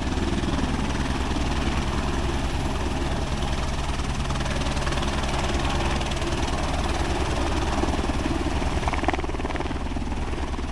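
AS350 AStar helicopter hovering low and setting down on its skids: the main rotor beats in a steady rapid rhythm over the running turbine and the rush of rotor wash, easing slightly near the end as it settles.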